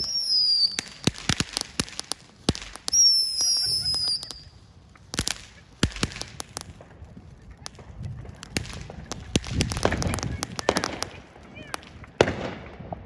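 TNT Fireworks Killer Bee firework going off: two high whistles, each falling in pitch for about a second, over many sharp pops and crackles that bunch up more thickly towards the later part.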